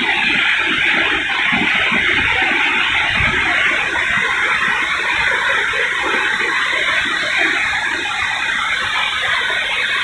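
Steady rushing hiss of Burney Falls, a tall waterfall pouring into its plunge pool, with irregular low rumbles underneath.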